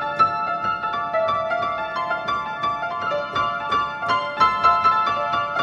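Upright piano improvising, a steady stream of quick, closely spaced notes in the upper middle register, recorded through a cell phone's microphone.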